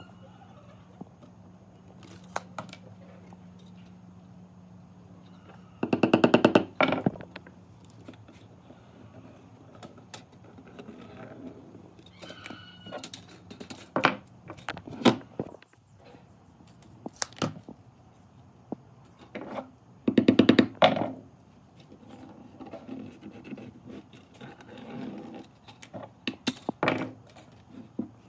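Workshop woodworking sounds: scattered knocks, thunks and scrapes of tools on wood over a low steady hum. Twice, about six and twenty seconds in, there is a loud burst of rapid repeated strokes lasting about a second.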